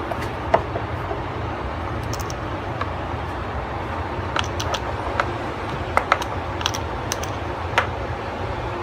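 Irregular light clicks and taps of small metal parts being handled, busiest in the second half, from the Dillon 9 mm crimp die and the XL650 reloading press being readied for adjustment, over a steady low hum.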